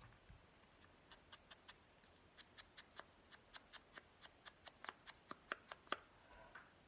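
A run of light, quick clicks, about four a second, growing louder toward the end and then stopping.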